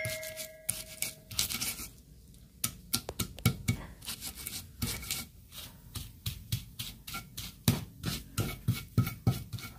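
A hand-held stone grinding whole chilies, shallots, candlenuts and andaliman pepper on a flat stone slab (batu giling): repeated scraping, crunching strokes, about three a second from about two and a half seconds in, with quieter rubbing before.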